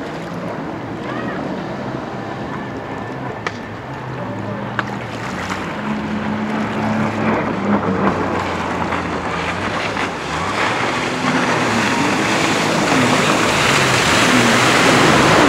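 Sea-Doo RXT 255 RS personal watercraft's supercharged engine running at speed, its pitch rising and falling with the throttle through the turns, over the hiss of the jet's spray. It grows louder toward the end as the craft comes close.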